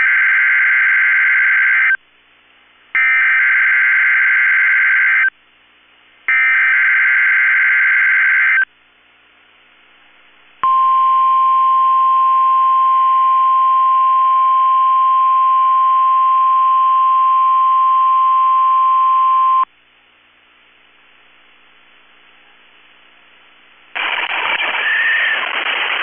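NOAA Weather Radio Specific Area Message Encoding (SAME) alert header: three bursts of warbling digital data tones, each about two seconds long, then the steady single-pitch warning alarm tone held for about nine seconds, which activates weather alert radios for the Required Weekly Test.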